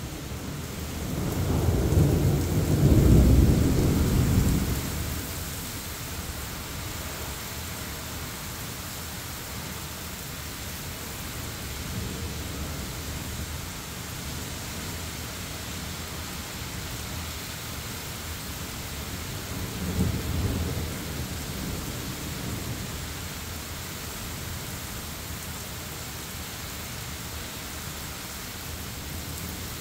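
Steady rain falling throughout, with a loud rumble of thunder building about a second in and fading after a few seconds, and a second, weaker thunder rumble about twenty seconds in.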